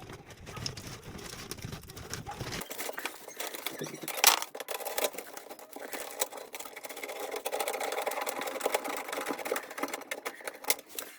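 Handling noise from hands-on work: dense rustling and clicking, with a sharp knock about four seconds in.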